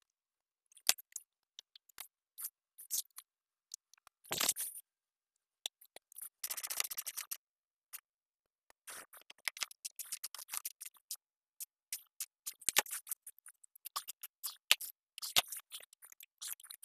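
Scattered plastic clicks, taps and scrapes as the side mirror assembly of a 2003 Mercedes-Benz E320 is handled and fitted onto the door, with a longer scrape about four seconds in and a short rattling run between six and seven seconds.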